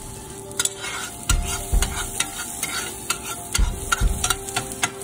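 Garlic sizzling in butter in a nonstick frying pan, with a spoon clicking and scraping against the pan as it is stirred, and a few dull knocks.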